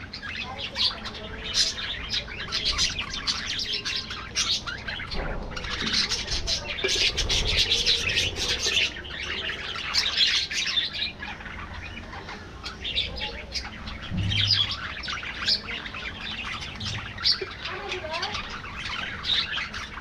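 A flock of budgerigars chattering, with many overlapping quick chirps and warbles.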